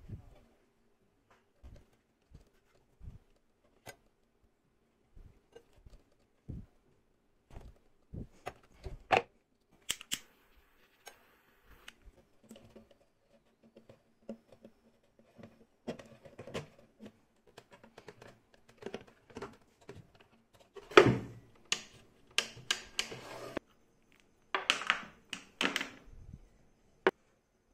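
Hands working at a bench: scattered light clicks, taps and knocks of small parts and wood, with a few louder, longer scraping rustles about three quarters of the way through.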